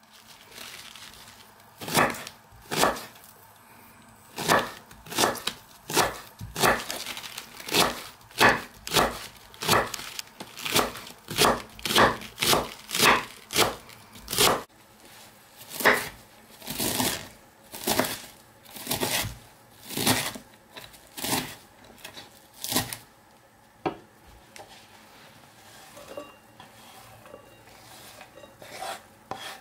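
Chef's knife slicing a raw cabbage into thin shreds on a wooden cutting board: a steady run of crisp cuts, about two a second, each ending in a knock of the blade on the board. The cutting stops about three-quarters of the way through.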